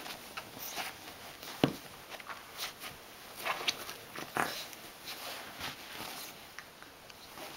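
Pit bull–hound mix puppy rolling and playing on a couch, making short irregular snuffles and rustles, with one sharp knock about one and a half seconds in.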